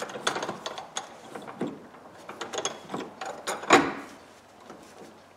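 Corroded ball-valve stem being turned by hand in its threads: a run of irregular gritty clicks and scrapes, with one louder click just before they stop near the end.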